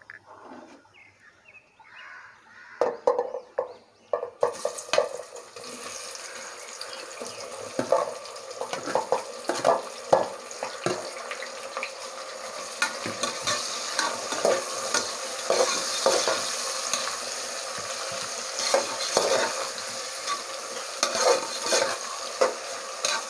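Sliced onions sizzling in hot oil and ghee in an aluminium pressure cooker, the fry starting suddenly about four seconds in as they hit the fat. A steel perforated ladle clinks and scrapes against the pot as they are stirred.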